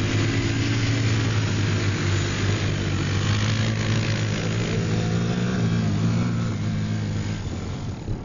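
Quad bike (ATV) engine running under load as it climbs a sand dune, its pitch rising and falling with the throttle.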